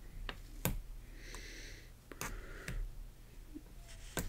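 Small plastic LEGO pieces being handled: a few separate light clicks and taps, with a brief rustle about a second and a half in.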